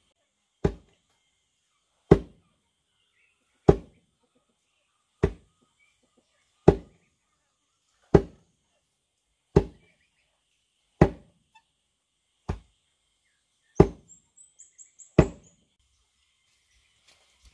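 Wooden pestle of a foot-treadled lever pounder dropping into a sunken mortar, pounding fodder: a steady run of heavy wooden thuds, about one every second and a half, one of them weaker. A bird chirps briefly near the end.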